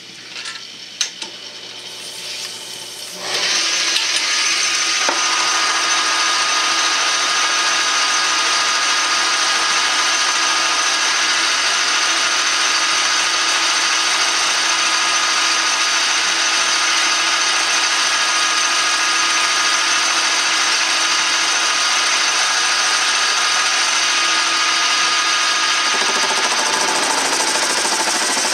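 Metal lathe taking a turning cut on a welded-up steel PTO gear shaft: a few clicks, then about three seconds in the machine comes up loud and runs steadily with a constant whine and hiss of the cut.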